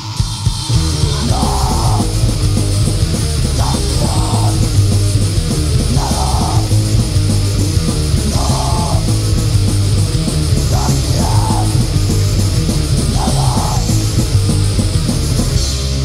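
Loud punk rock music: a full band with heavy drums and bass, and short shouted vocal phrases that recur about every two seconds.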